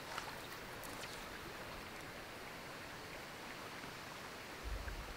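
Steady rush of a river flowing over shallows, with a short low rumble near the end.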